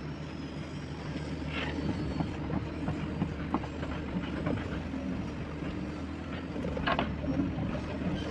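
Excavator engine running steadily while its crawler tracks clank and clatter, with scattered sharp cracks and clicks, the clearest about one and a half seconds in and near the end.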